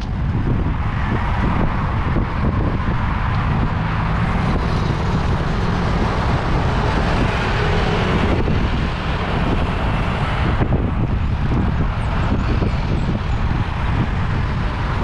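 Road traffic around a moving fixed-gear bicycle, with wind buffeting the microphone. A vehicle's noise swells through the middle and drops away about eight seconds in.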